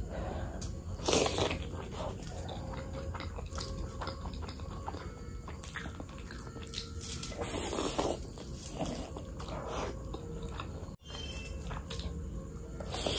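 Close-miked eating sounds: biting into and chewing pieces of mutton curry, wet and irregular. The loudest bites come about a second in and again around eight seconds.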